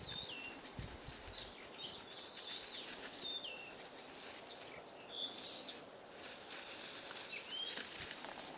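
Small birds chirping, short high notes that fall in pitch, repeating every second or so over a steady outdoor hiss. A few soft low thumps about a second in.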